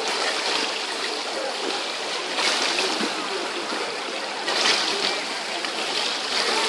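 Water splashing from a swimmer's legs kicking while she holds a kickboard, with louder bursts of splashing about two and a half and four and a half seconds in. Faint voices of other swimmers sit underneath.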